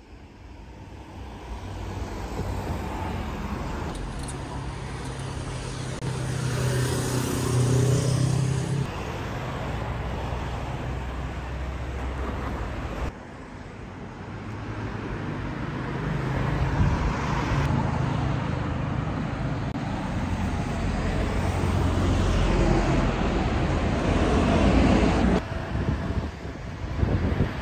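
Road traffic on a city street: cars passing, the noise swelling and fading several times, with a sudden drop about halfway through.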